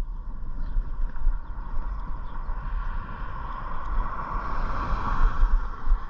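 A vehicle driving: steady road and engine noise with a low rumble, and a tyre hum that swells about four to five seconds in.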